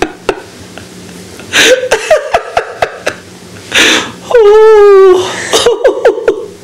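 A man laughing helplessly: breathy gasps of laughter, then a long, high, wavering squeal of laughter about four seconds in, followed by short bursts of giggling.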